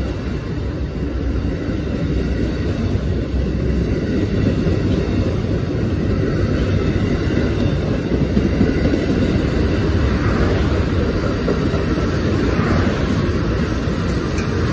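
Amtrak passenger cars rolling past at a station platform: a steady rumble of steel wheels on rail, a little louder partway through.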